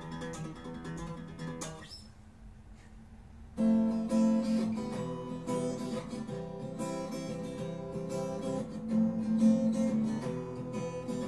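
Guitar strumming chords with no singing. The playing drops away about two seconds in, then comes back suddenly and louder about a second and a half later and keeps going.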